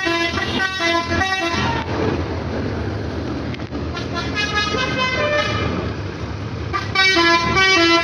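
A bus's multi-tone "basuri" telolet horn plays short melodic toots in bursts, with a loud burst near the end, over a coach engine running as the Mercedes-Benz OH 1626 pulls out.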